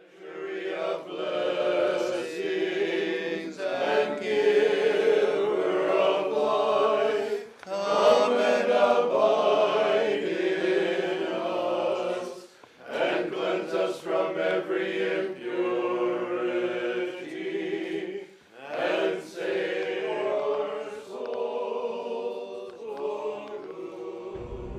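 Unaccompanied choir singing Orthodox church chant in several long phrases separated by brief pauses, growing quieter toward the end.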